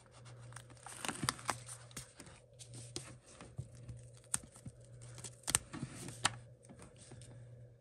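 Paper rustling and crinkling with many small, irregular clicks and ticks as cling rubber stamps are peeled off their sheet and handled against paper sheets.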